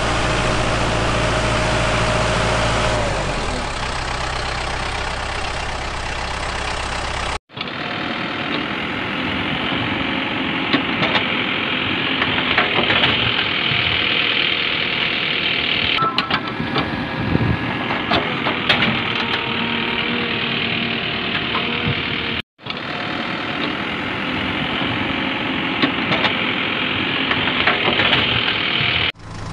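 An engine running steadily, with scattered clicks and scrapes over it. The sound drops out abruptly twice, once about a third of the way in and again about three quarters of the way through.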